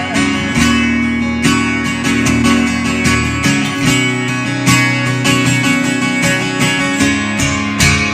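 Instrumental break of a country song: acoustic guitar strumming over sustained bass notes, with no singing.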